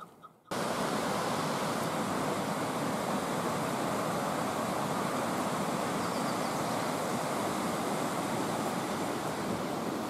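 Steady rush of flowing river water, starting suddenly about half a second in and holding even throughout.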